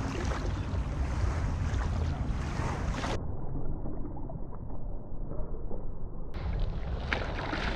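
Wind buffeting the microphone over the wash of small waves on the shore, a steady rushing noise with low rumble. It goes muffled for about three seconds in the middle.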